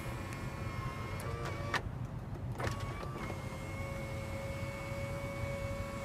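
Toyota Tundra 1794 Edition's power moonroof motor whining steadily as the glass panel moves. It stops briefly about two seconds in, then starts again and runs on.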